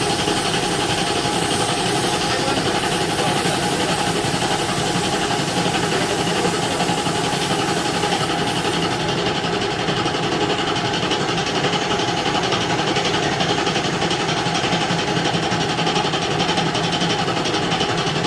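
A machine running steadily without a break, a continuous mechanical hum with several fixed tones over a dense noise; the highest hiss drops away about halfway through.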